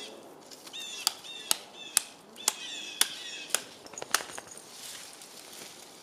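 Chopping at a dead branch: about seven sharp wooden knocks roughly two a second, stopping about four seconds in. Small birds chirp between the strokes.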